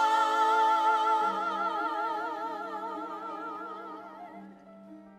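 Musical-theatre cast singing a long held final chord of a number, the voices swelling into a wide vibrato and then fading away, over a low held accompaniment note that enters about a second in.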